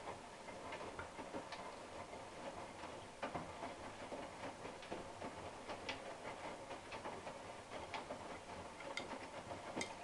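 Hotpoint NSWM 843C washing machine with inverter motor, its drum tumbling wet laundry on the rinse: a faint steady hum with irregular light clicks, several a second.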